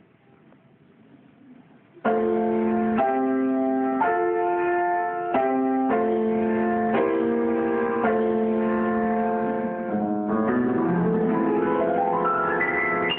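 Grand piano played solo: near quiet at first, then the playing starts abruptly about two seconds in with sustained chords, and a rising run of notes climbs toward the treble near the end.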